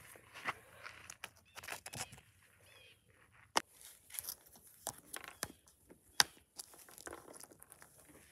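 Handling noise: scattered sharp taps and light rustling as small plastic toy cat figurines are set down and moved about on concrete and brick. Two sharper taps stand out, a little before halfway and about three-quarters in.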